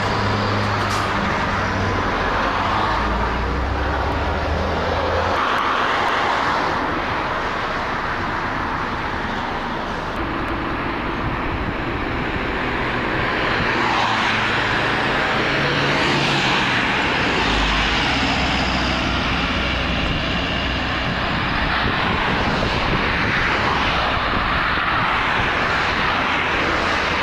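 Steady highway traffic noise, with vehicles swelling and fading several times as they pass close by.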